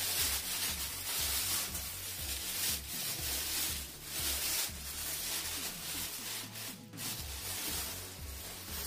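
Large plastic bag rustling and rubbing as it is dragged up and off a 3D printer, in a run of rough strokes with a brief pause about seven seconds in.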